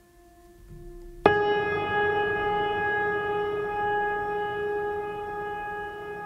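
Background music: a soft held tone, then about a second in a louder, brighter sustained note that comes in abruptly and slowly fades.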